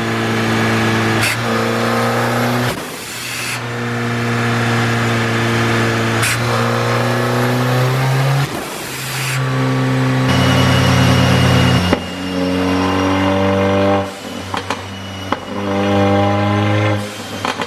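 Mercedes-AMG CLA45's turbocharged 2.0-litre four-cylinder running hard on a dyno, its engine note held in steps that change every few seconds, each change marked by a short sharp crack from the tuned exhaust and diverter valve.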